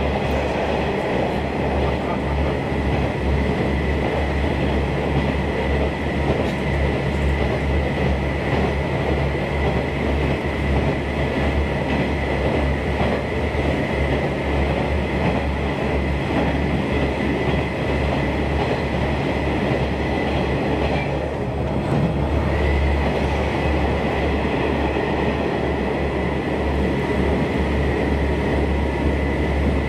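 Interior of an Aizu Railway railcar running through a tunnel: a steady, loud rumble of wheels on rail and running gear, with a constant low hum and a thin steady high whine over it.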